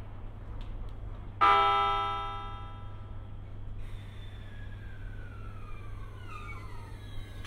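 Single short horn blast from the FV-E991 train, a bright note with many overtones that comes in suddenly and fades away over about a second. A few seconds later a faint whine slides down in pitch, over a steady low hum.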